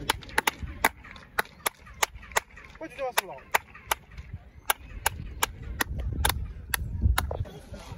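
Sharp hand claps repeated at uneven spacing, about two a second, in front of the stone staircase of El Castillo pyramid at Chichen Itza. Each clap is thrown back off the steps as a chirp echo.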